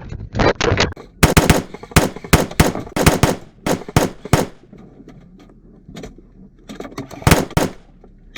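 Airsoft guns firing in rapid bursts on full auto: a short run of shots in the first second, a louder string of bursts from about one to four and a half seconds in, and another short burst near the end.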